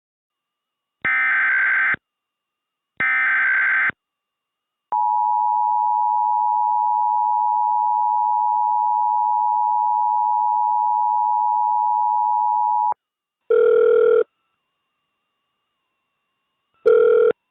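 Mock Emergency Alert System test tones: two one-second bursts of the digital SAME header, then the two-tone EAS attention signal (853 and 960 Hz) held steady for about eight seconds. Two short tone bursts follow near the end.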